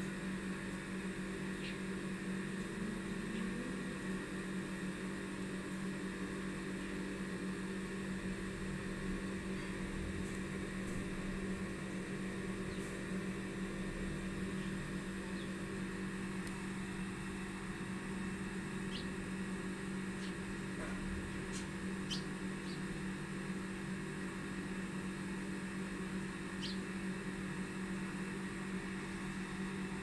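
Steady low hum at an even level, with a few faint, short high chirps scattered through it.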